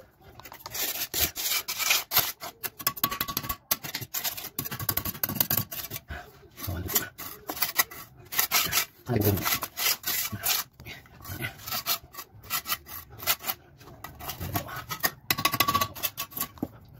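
Hand tool rasping across a wooden board in quick, irregular strokes, shaving off the excess and smoothing the wood.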